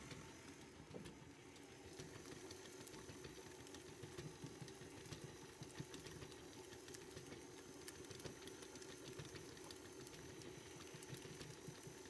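Faint, steady hum of a stand mixer's motor running at low speed, its flat beater churning a thin, runny cake batter in a glass bowl.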